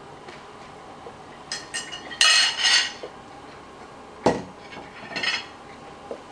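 A metal fork and a plate clink and clatter several times, loudest about two seconds in, with a sharp knock a little after four seconds as the plate is set down on the kitchen counter.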